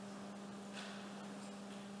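A steady low hum over a faint hiss, with a brief soft rustle a little under a second in.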